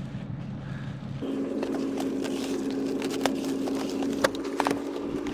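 A vehicle engine idling with a steady hum, with a few sharp clicks and knocks over it.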